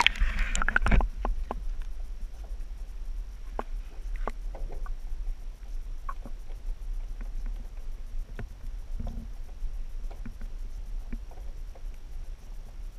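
A GoPro in its waterproof housing going into the water through a hole in the ice: a burst of splashing and handling noise in the first second, then a low muffled rumble with scattered faint clicks as it hangs underwater.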